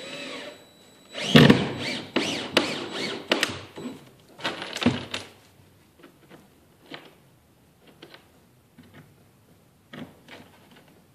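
Cordless drill driving screws through a wooden stringer into plywood, in several short runs of the motor speeding up and slowing down, loudest in the first half. Softer clicks and taps follow between runs.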